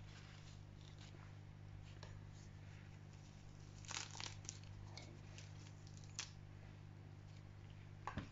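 Coleus leaves being handled and torn back by hand: faint rustling with a few brief soft tearing crackles, about four seconds in, around six seconds and near the end, over a low steady hum.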